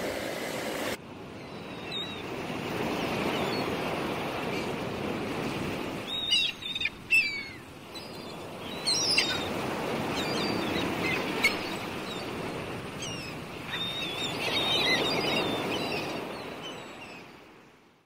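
Gulls calling a few times, short runs of high, sliding cries, over small waves washing steadily onto a sandy shore. The sound fades out at the end.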